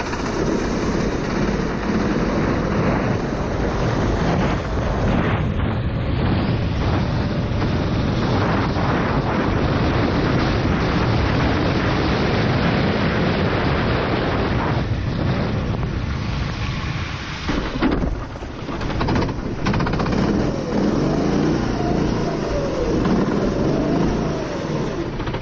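Four-stroke racing kart engine running at speed on a wet track, its note rising and falling with the throttle under heavy rough noise of wind and spray on the onboard microphone. The sound drops briefly about 18 seconds in, then the engine is heard revving up and down again near the end.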